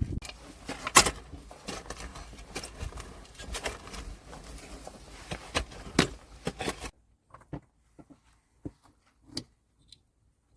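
Close handling sounds: a busy run of clicks, knocks and rustling for about seven seconds, then a few scattered sharp clicks.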